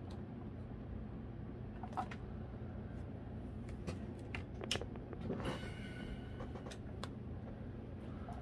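Light clicks, taps and a brief scrape of plastic robot parts and cables being handled on a workbench, over a steady low hum.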